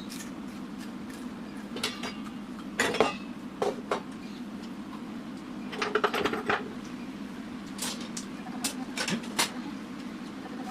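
Homemade coffee roasting machine giving a steady low hum, with irregular metallic clinks and rattles, the loudest clusters about three and six seconds in.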